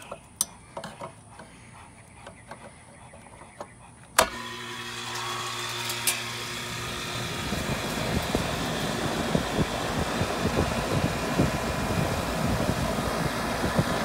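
A sharp clack about four seconds in as power is restored, then the York condenser unit starts up on its newly replaced capacitor: a steady electrical hum from the compressor, joined by the rush of the condenser fan, which builds over the next few seconds and then runs steadily.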